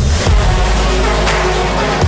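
Electronic background music with a heavy sustained bass and a steady beat.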